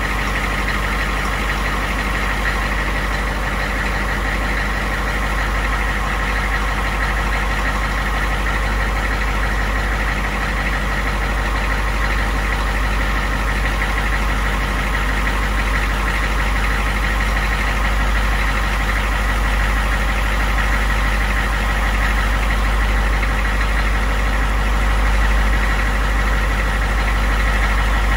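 Humvee's 6.2-litre naturally aspirated V8 diesel idling steadily, with a steady high whine over the engine note.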